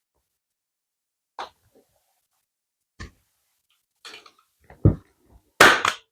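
Arrow T50 manual staple gun firing staples into an upholstered cushion base: about four sharp clacks, a second or two apart, the last the loudest, with light rustling of the fabric between shots.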